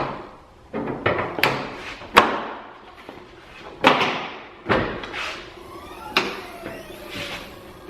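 Plastic truck grille being pushed and knocked into its clips on a Toyota Tundra's front end: a series of sharp knocks and thuds, the loudest a little over two seconds in.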